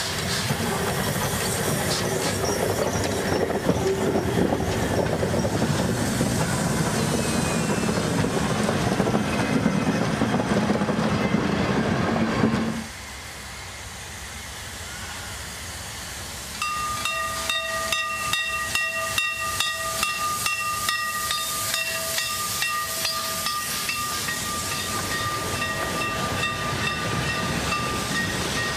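Steam locomotive hauling a passenger train: chuffing exhaust, steam hiss and wheel clatter as it runs past. The sound drops away suddenly about halfway through, and a few seconds later returns with a fast, regular chuff and a long steady high tone above it as the engine draws near and passes, its cylinder steam hissing.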